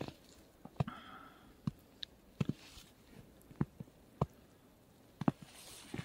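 Footsteps of someone walking on thin snow through forest undergrowth: a sharp crunch or crack roughly every second, at an uneven pace.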